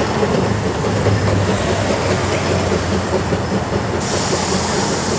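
Narrow-gauge steam train rolling away on a curve, its wagons and brake van rattling and clattering over the rails. A higher hiss comes in about four seconds in.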